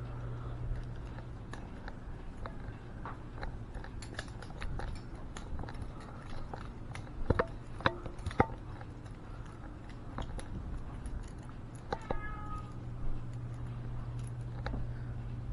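Scattered clicks and light knocks of small objects being handled by hand, with three sharper knocks between about seven and eight and a half seconds in, over a steady low hum.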